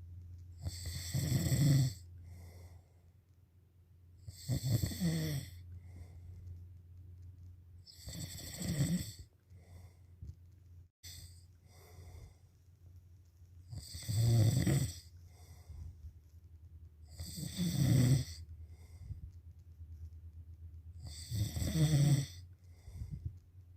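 Snoring: six loud snores, one every three to four seconds, with a longer pause in the middle, over a steady low hum.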